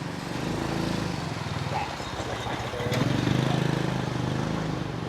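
A motor vehicle's engine running with a low, steady hum that grows louder twice: briefly near the start and again for a longer stretch from about three seconds in.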